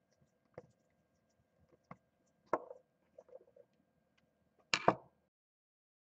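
A Phillips screwdriver clicking and knocking against a small plastic hydraulic DIN connector as its screw is tightened down snug. Scattered light clicks build to a louder double knock near the end.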